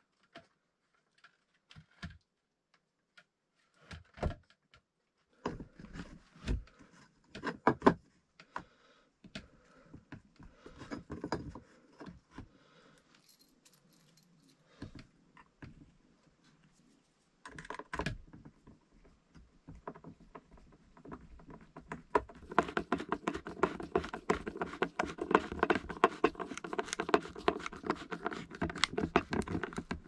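Small metal hardware and a screwdriver handled on a wooden plank floor while a metal hinge is fitted to a floor hatch. Scattered knocks and taps come first, then from about two-thirds of the way in a dense run of rapid metallic clicking and rattling.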